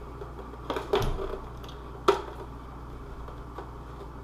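Light knocks and clicks of tools and shims being handled against the glued piece: a short cluster about a second in and one sharp click about two seconds in.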